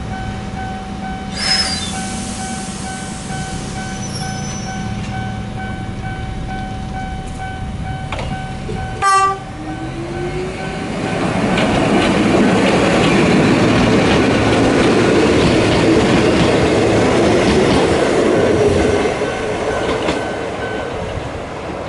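Ichibata Electric Railway 5000 series electric train (ex-Keio 5000 series) approaching and running past close by, loudest from about eleven seconds in, with a short horn blast about nine seconds in. A level-crossing bell rings steadily underneath.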